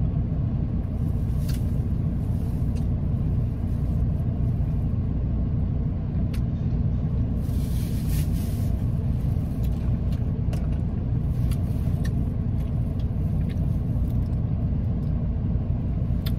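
Steady low rumble of a car's idling engine heard from inside the cabin, with a few faint clicks and a brief rustle about eight seconds in.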